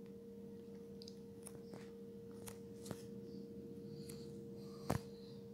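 Quiet room tone with a steady low hum and a few faint scattered clicks, the sharpest a single click about five seconds in.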